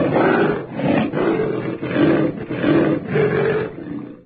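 Bobcat calling in a run of about five loud, rough pulses, each under a second long, growing weaker near the end.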